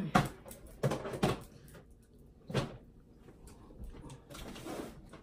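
A handful of sharp knocks and clatters from someone rummaging through a low cabinet while searching for a pair of shears: about four distinct bangs in the first three seconds, then softer handling noise.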